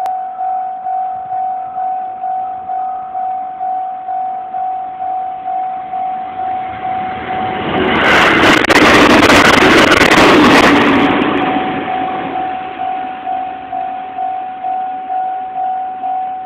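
Japanese railway level crossing warning bell dinging steadily about twice a second, while a train passes over the crossing. The train is loud for about four seconds around the middle and drowns out the bell, which goes on ringing after it has passed.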